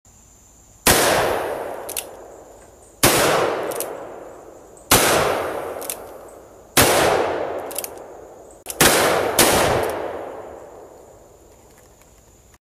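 A 12-gauge single-shot shotgun fired five times, about two seconds apart. Each blast dies away slowly with a long echo, and a fainter sharp crack follows each one about a second later.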